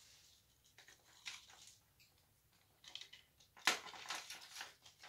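Faint handling noises as jewelry is put down and picked up: scattered small clicks and rustles, with a louder scrape or clatter a little over three and a half seconds in.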